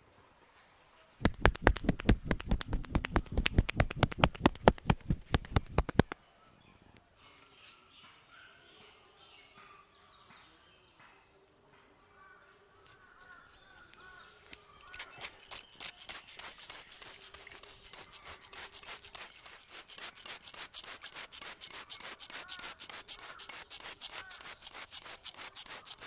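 Rapid hand strikes of a head massage: a burst of fast, loud slaps, about eight a second, lasting about five seconds. Then a quieter stretch with faint bird chirps, and from about halfway on a longer run of lighter, crisper pats and rubs on the head.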